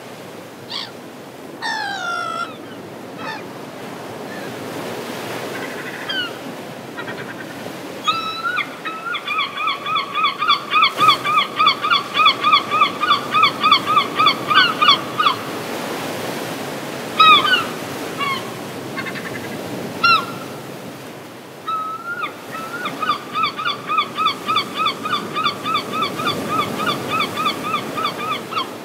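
Seagulls calling over surf: a few single drawn-out, falling cries, then two long runs of rapid laughing calls at about four a second, the gull's long call.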